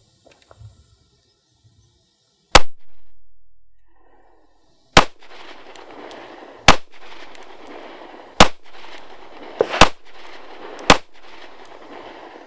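FN Five-seveN pistol firing 5.7×28mm SS198 rounds: six sharp shots, the first on its own, then five more a second or two apart.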